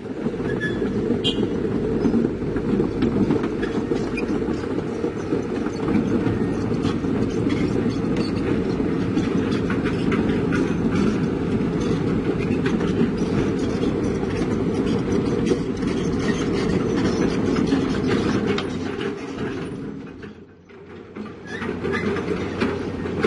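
Heavy diesel construction machinery running under load, with a dense, steady rumble and a constant rattle of metallic clanks. It drops away briefly about twenty seconds in, then comes back.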